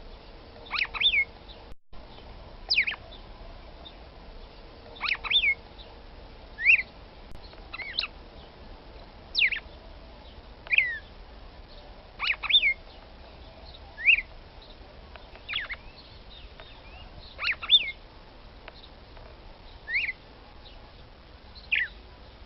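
Female red-cowled cardinal (Paroaria dominicana) calling to stir up a male: short, sharp chirps, each dropping in pitch, repeated about once a second, some in quick pairs.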